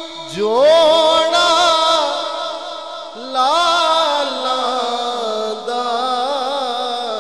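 A male naat reciter sings a long, drawn-out melismatic vocal line in a devotional kalam. One phrase rises in pitch just after the start and wavers, a second rises at about three seconds, and it settles into a long held, wavering note.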